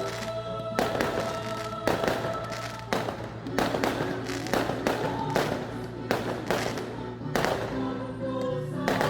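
Fireworks bursting in quick succession, many sharp bangs and crackles, over music with held tones and a sung melody.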